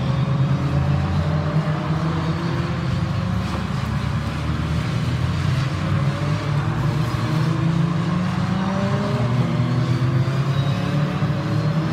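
Several Fun Cup race cars (Beetle-bodied racers) passing through a corner, their engines overlapping. The engine notes rise and fall in pitch as the cars brake and accelerate.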